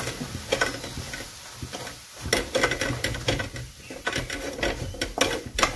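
Wooden spatula scraping and tapping against a metal kadhai while stirring flour roasting in ghee: an irregular run of scrapes and knocks.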